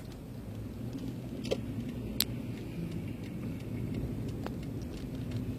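Steady low rumble of a car driving, its engine and tyre noise, with a few scattered sharp clicks.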